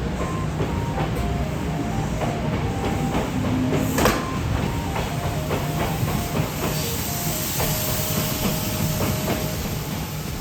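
Kintetsu commuter train passing over the level crossing, its wheels rumbling and clattering irregularly over the rail joints, with one sharp click about four seconds in.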